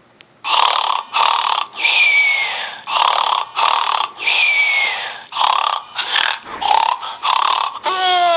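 Close, loud snoring by a sleeper with a pacifier in the mouth: a quick run of noisy breaths, about one and a half a second. Two of them carry a falling whistle, and near the end there is a falling, whining tone.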